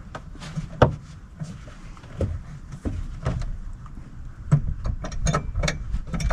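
Scattered clicks, knocks and scrapes of hands working plastic clips and trim behind a 2015 Jeep Cherokee's headlight housing, with a quick run of sharper clicks near the end.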